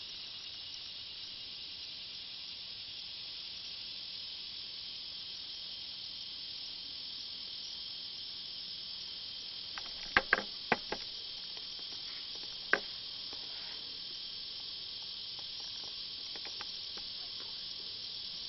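Steady insect chorus, an even high hiss. About ten seconds in comes a quick run of four or five sharp clicks, and one more click about two seconds later.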